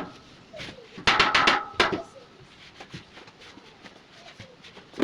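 Steel rack parts being knocked into place: a quick run of ringing metal clanks about a second in, one more just after, then faint light knocks.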